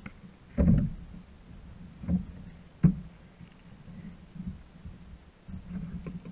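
Knocks and thumps against a kayak hull as gear and fish are handled aboard: three louder ones, the sharpest near the middle, over a low steady rumble.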